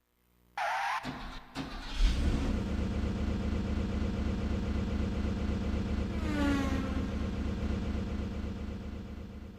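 Car engine sound effect played from a Kumyoung karaoke machine's built-in effects bank: a short rising whine about half a second in, then a steady low engine rumble from about two seconds in that fades out near the end.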